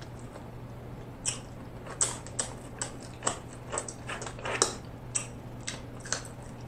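Close-up mouth sounds of eating king crab leg meat: short wet smacks and sucking clicks, irregular, about two a second, over a steady low hum.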